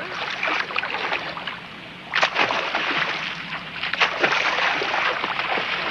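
Lake water splashing and sloshing, with a sharper, louder splash a little over two seconds in and another at about four seconds.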